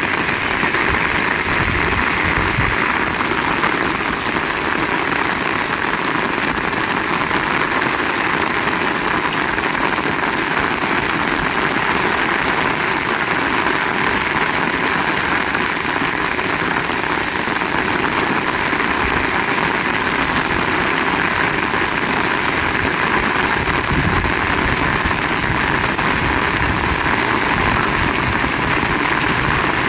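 Heavy rain pouring steadily, with a low rumble swelling briefly near the start and again near the end.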